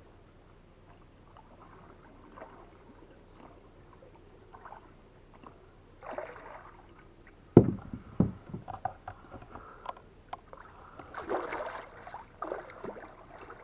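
A big hooked fish splashing and thrashing at the surface of the water right beside a wooden dugout canoe, with two heavy thuds on the hull about halfway through and a longer burst of splashing near the end.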